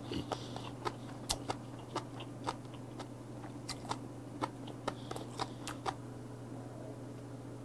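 Close-miked chewing: irregular crisp clicks and small crunches of food in the mouth, thinning out about six seconds in, over a steady low hum.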